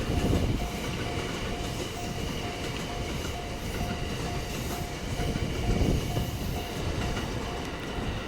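A train running past a Japanese level crossing, its wheels and running gear giving a steady low rumble that swells twice. Over it the crossing's electronic warning bell dings about twice a second.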